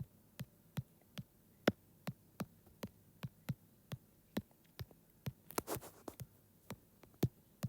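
Computer mouse clicking at a quick, fairly even pace, about two or three clicks a second, as targets in an aim-trainer test are clicked one after another. A short rustle comes about three-quarters of the way through.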